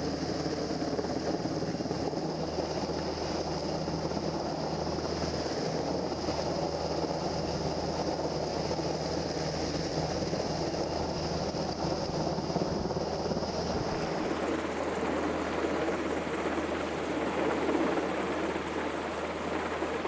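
Navy H-60 Seahawk helicopter hovering low overhead, its rotor and engines running steadily. A steady high whine fades out about two-thirds of the way through.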